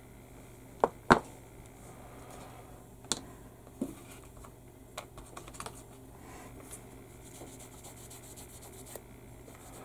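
Wire cutters snipping small plastic model parts off the kit's sprue: two sharp snaps about a second in, and a few lighter clicks over the next few seconds. In the second half, a sanding stick is rubbed quickly over the cut plastic part, a fast, light scratching.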